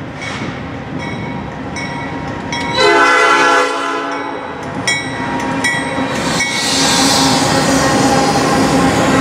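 Nathan P5 air horn on a Norfolk Southern GE AC44C6M locomotive blowing for a grade crossing, with one loud chord lasting about a second, about three seconds in. Then the locomotives pass close by with a rising rumble of engines and wheels on the rail.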